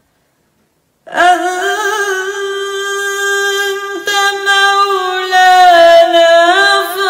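A woman's voice chanting Quran recitation in a melodic, sung style, starting about a second in and holding long notes with ornamented turns.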